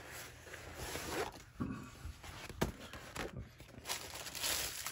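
Rustling and handling noise from a diamond-painting canvas with its plastic cover as it is turned over and smoothed by hand, with a few soft knocks.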